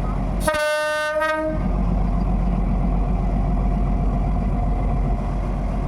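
Alsthom diesel-electric locomotive 4218 sounding one short horn blast of about a second, followed by the steady low rumble of the train running.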